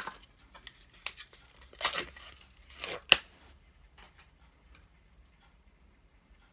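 Plastic packaging of a Scentsy wax bar being handled and peeled: crinkling and tearing in a few short bursts, with one sharp snap about three seconds in, then a few faint rustles.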